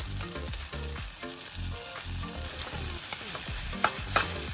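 Garlic and paprika peperoncino sizzling in olive oil in a pan, a steady frying hiss. Two sharp clicks near the end are the loudest sounds.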